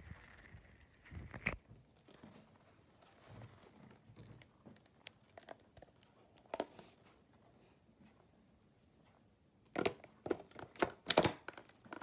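Handling noise: a few soft clicks and rustles, then about ten seconds in a quick run of louder rustling and knocks, like a hand moving over bedding and plastic parts close to the microphone.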